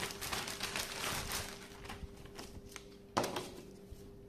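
Clear plastic bag crinkling in the hands as a rubber drive belt is pulled out of it. The crinkling is busiest in the first two seconds, then thins to light rustles with one sharper rustle about three seconds in, over a faint steady hum.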